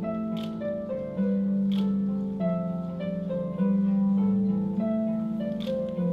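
Slow instrumental music on plucked strings: a melody of held notes over deep sustained bass notes, with a few sharp ticks.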